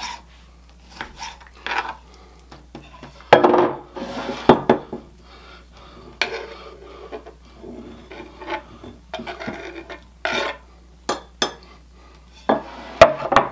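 Kitchen knife chopping and scraping diced tomato on a bamboo cutting board, then the pieces slid off the tipped board into a glass measuring cup: an irregular run of knocks and scrapes, loudest between about three and five seconds in and again near the end.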